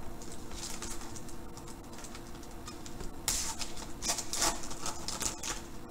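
Clear plastic wrapper crinkling and crackling as hands handle a stack of trading cards, in irregular bursts that are loudest a little past halfway through.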